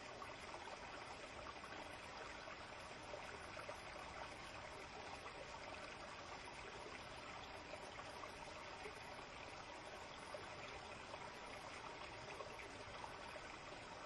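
Shallow forest stream flowing and trickling over rocks, a faint, steady rush of water.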